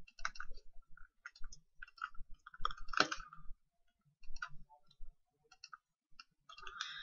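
Faint, scattered clicks of a computer mouse and keyboard, with a denser run of clicks about three seconds in.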